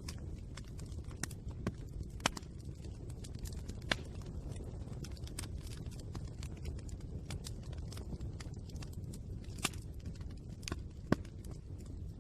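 Fire crackling: a steady low rush of flames with irregular small snaps, and a few louder pops standing out.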